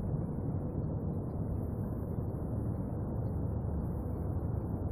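Wind noise on the microphone: a steady low rushing with no distinct events.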